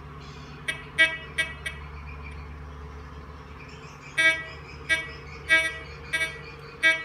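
Metal detector sounding short beeps as a large metal part is waved past its coil. There are four quick beeps about a second in, then five more about every two-thirds of a second from about four seconds in, over a steady low hum.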